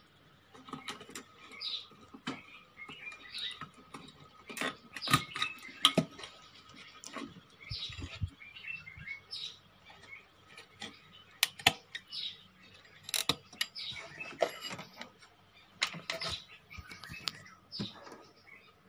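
Small birds chirping in short, high calls about once a second, among irregular sharp clicks and knocks from hands handling the cabinet and its wiring.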